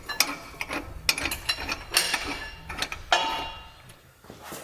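Ratchet clicking in quick runs among metal clinks as lifting gear is rigged over an engine, ending with a sharp, ringing metal clank about three seconds in.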